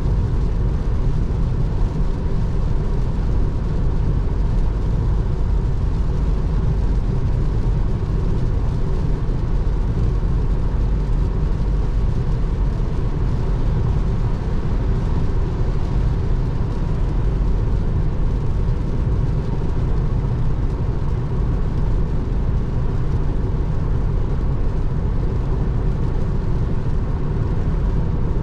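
Steady road and tyre noise on a wet highway heard inside the cabin of an electric Tesla Model 3 cruising at speed in the rain: an even rushing with a deep rumble, without engine sound.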